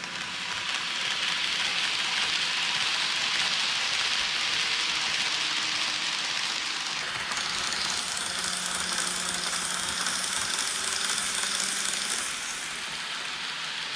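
N-gauge model of a 683 series 4000 'Thunderbird' electric train running along model track, a steady rushing rattle of small wheels on the rails. It builds over the first second as the train approaches and eases off a little near the end.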